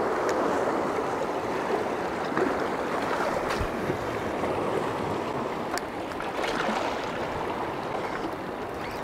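Sea water washing and rushing over shoreline rocks, a steady noise with a few faint clicks.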